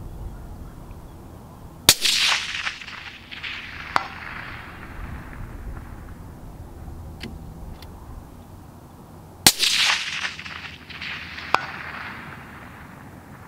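Two suppressed .260 Remington rifle shots, about seven and a half seconds apart, each followed by a rolling echo. About two seconds after each shot comes a sharp ping: the bullet striking a steel gong about 500 metres away.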